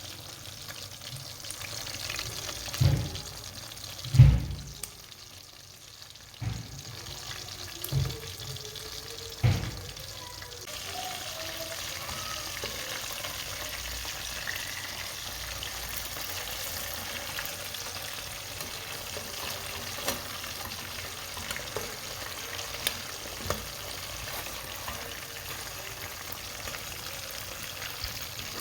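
Marinated chicken leg pieces frying in oil with a steady sizzle. A few dull knocks come in the first ten seconds, after which the sizzle settles into an even hiss.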